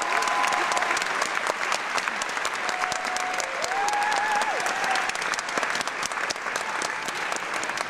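Audience applauding with dense, steady clapping. A few held cheering calls ring out over it, the clearest rising and then falling about halfway through.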